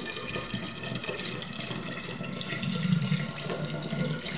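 Strawberry liqueur being poured through a plastic funnel into a bottle: a steady stream of liquid, with a low hum growing stronger about three seconds in.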